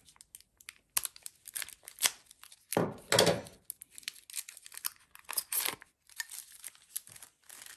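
Clear plastic blister pack being cut with scissors and pulled open: irregular crackling and crinkling of stiff plastic, loudest about three seconds in and again a little past five seconds.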